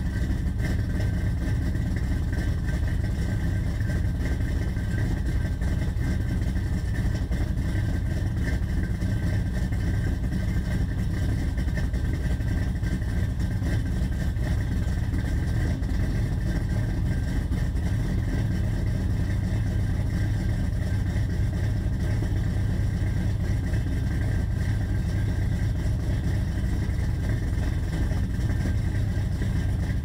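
Small-block Chevy 350 V8 idling steadily on a cold start through Flowmaster 40 series mufflers on a true dual exhaust with shorty headers and an X-pipe. The idle stays high, around 900 rpm, and will not come down.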